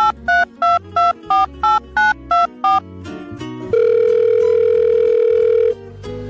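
Telephone keypad tones: about ten quick two-note beeps, roughly three a second, then one long steady tone lasting about two seconds. Background music plays underneath.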